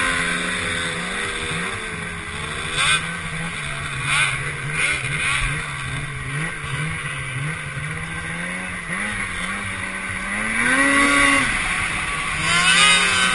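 Snowmobile engine running under way, its pitch dipping and rising with the throttle, with a clear rise in revs about ten seconds in, over a steady rushing noise.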